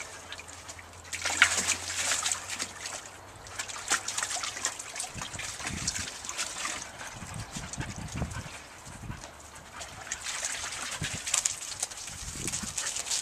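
Water splashing and sloshing in a plastic paddling pool as a collie cross dog moves about in it, in irregular bursts.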